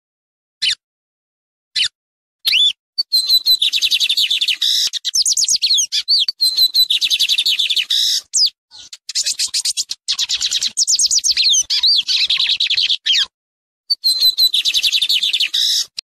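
Lined seedeater (bigodinho) singing: two short single notes, then several long phrases of rapid, high twittering song separated by brief silent pauses.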